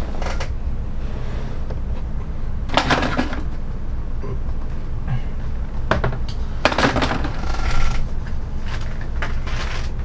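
Parts and packaging being handled during a PC build: about four short clattering, rustling knocks, the clearest about three and seven seconds in, over a steady low hum.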